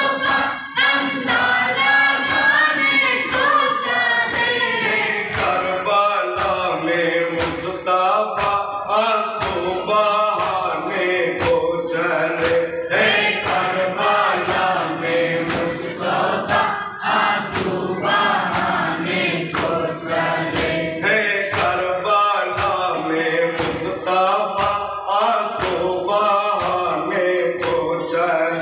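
Group of men chanting a Muharram noha, a mournful lament, behind a lead singer on a microphone, with a steady beat of matam chest-beating, palms striking chests in time with the chant.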